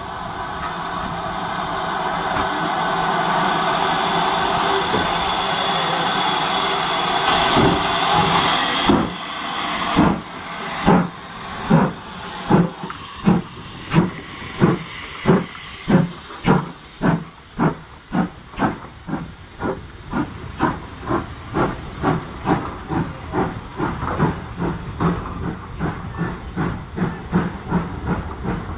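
GWR 2857, a 2-8-0 steam locomotive, hissing steam steadily and then moving off: exhaust chuffs begin about nine seconds in at roughly one a second and quicken to about two a second, growing fainter as it pulls away.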